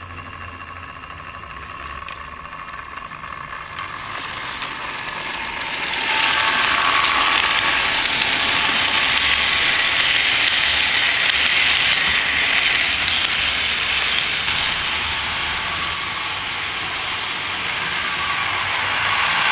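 HO-scale model freight train running on layout track, hauled by a model SBB Cargo Re 482 electric locomotive. It begins with the locomotive's motor whine and a low hum. About six seconds in, a louder, steady rolling clatter of the freight wagons' wheels on the rails takes over as the wagons pass close by.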